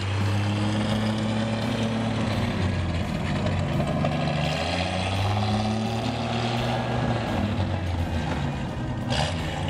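1941 Chevy pickup's straight-six running through straight-pipe stacks with no mufflers as the truck pulls away, its exhaust note rising and dropping as it goes through the gears.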